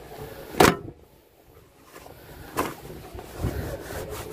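Two sharp knocks about two seconds apart, the first much louder, over a low background rumble.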